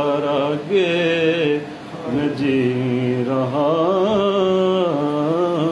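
A man singing unaccompanied in long, drawn-out notes that waver and glide in pitch, with a short pause about two seconds in.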